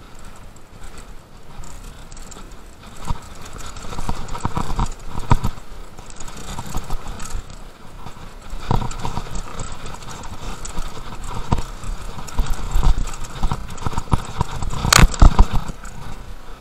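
Mountain bike rattling and knocking as it rides down a rough bike-park trail, with uneven hard impacts throughout and one sharp, loud clack about fifteen seconds in.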